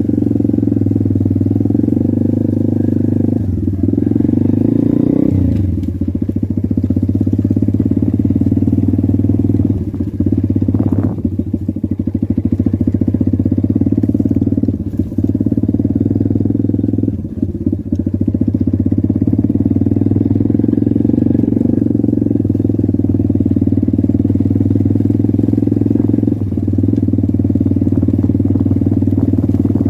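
Pit bike's single-cylinder engine running steadily under way, heard from on the bike, easing off the throttle briefly a few times.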